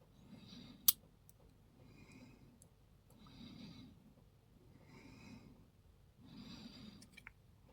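Close-up breathing of a person concentrating, soft and regular, about five breaths. A single sharp click about a second in, as the lock's pins are being taken out with tweezers.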